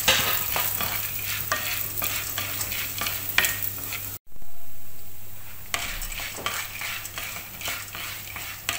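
Wooden spatula stirring split roasted gram (pottukadalai) frying in ghee in a non-stick kadai: quick dry scraping and rattling strokes over a light sizzle, as the gram is roasted to golden. The sound cuts out abruptly about four seconds in, and the strokes return more quietly.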